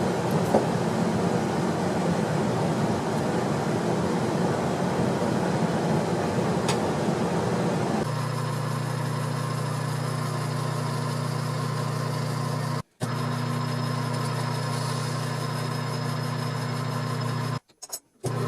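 Stick welder at work: a dense, rough arc noise for about eight seconds, then an abrupt change to a steady low electrical buzzing hum from the welding machine, broken twice by brief dropouts near the end.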